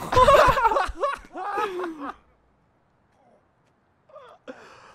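A voice laughing and exclaiming for about two seconds, then a near-silent pause with a few faint sounds near the end.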